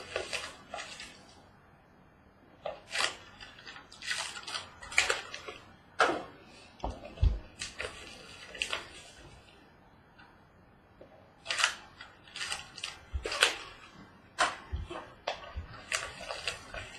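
Trading card packs and their box being handled and opened: irregular bursts of crinkling and tearing packaging, with a few dull knocks on the table.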